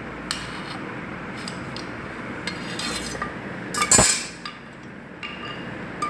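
Metal clinking and scraping of a steel tube against a stainless steel tray. There are a few light clicks and one loud clatter about four seconds in, over a steady background hiss.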